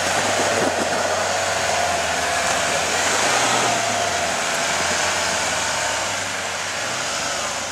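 Four-wheel-drive engine held at high revs while a snow-chained wheel spins in snow, making a steady rushing noise that eases slightly near the end. It is the sound of a Jeep Cherokee stuck in snow being pulled out on a tow strap.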